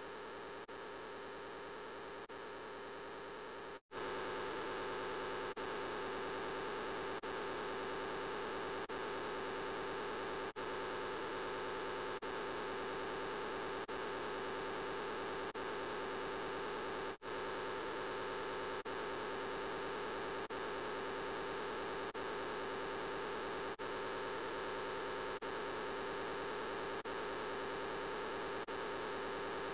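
Thousands of overlaid copies of the 'I'm Peppa Pig' voice clip merged into one steady, dense drone with no words left to make out. It dips briefly about every second and a half as the loop restarts, cuts out completely a little under four seconds in, then comes back louder.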